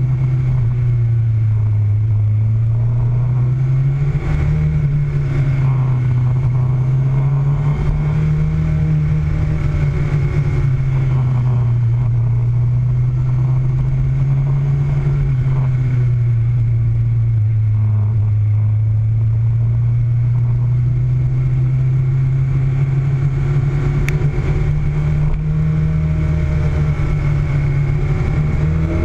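Motorcycle engine running under way on a winding road, its pitch rising and falling slowly with the throttle through the bends, over a steady rushing noise.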